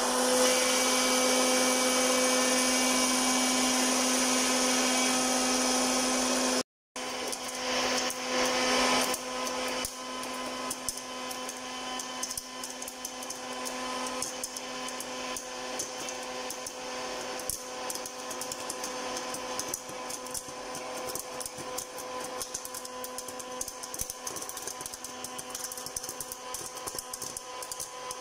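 Electric hot-air popcorn maker running, its fan motor whirring with a steady hum. After a brief dropout about a third of the way in, kernels pop in a rapid, irregular crackle over the hum as popped corn blows out of the chute.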